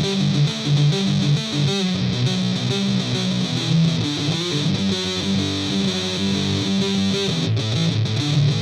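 1980s Synsonics Les Paul copy electric guitar played at high gain through a Joyo Extreme Metal distortion pedal into a Marshall Origin 50 amp, on the middle pickup position: a heavily distorted riff of held, changing chords and notes.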